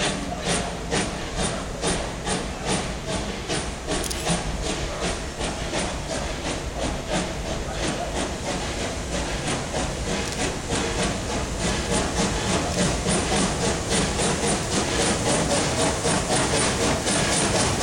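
FS Class 625 steam locomotive 625 100 pulling out with its train, its exhaust chuffing in regular beats that quicken from about two to about four a second as it gathers speed, with the rumble of the wheels and carriages growing as it draws close.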